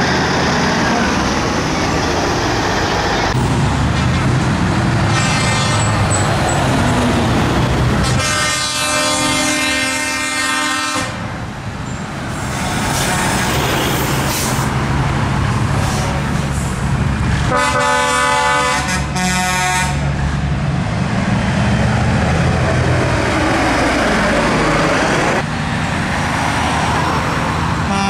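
Heavy trucks driving past with engines running, sounding their air horns: two long blasts, about a third and two thirds of the way through, and another starting at the very end.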